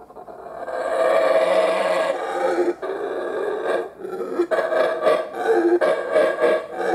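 Howler monkeys roaring: a deep, rasping chorus that swells up over the first second and holds, then breaks into shorter pulsed roars in the second half.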